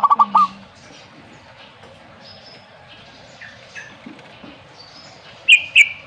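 Zebra dove (perkutut) giving a quick string of rapid, trilled cooing notes right at the start, over faint chirping from small birds. Near the end come two brief, loud, high-pitched sounds.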